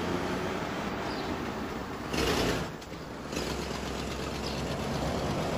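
An engine running steadily under a wash of noise, with a brief louder rush of noise about two seconds in.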